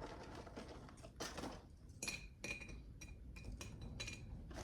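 Vanilla wafers being laid into a serving bowl: a run of light, irregular clinks and taps against the bowl, several with a brief ring.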